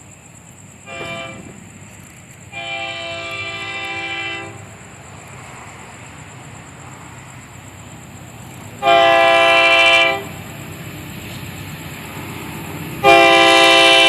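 Lead SD40 diesel locomotive of a Florida East Coast Railway freight sounding its multi-chime air horn in four blasts: a short faint one about a second in, a longer one around three seconds, then two loud blasts near nine and thirteen seconds as it draws near. A low rumble lies under them.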